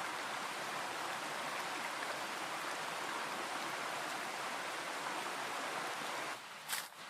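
Steady rushing noise like flowing water, which stops abruptly about six seconds in; a couple of short clicks follow near the end.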